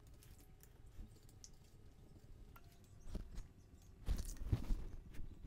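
Faint tabletop handling noise while watercolor brushes work on paper: soft scratches and light clicks, then a cluster of dull knocks about four seconds in.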